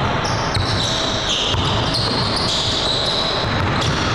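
Pickup basketball game in a large gym hall: a basketball bouncing on the hardwood court amid indistinct voices of players.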